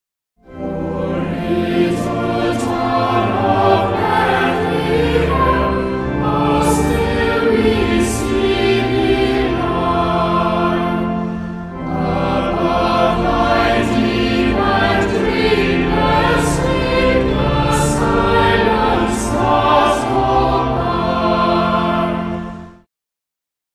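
Choral music: a choir singing. It starts just after the beginning, dips briefly about halfway, and cuts off about a second before the end.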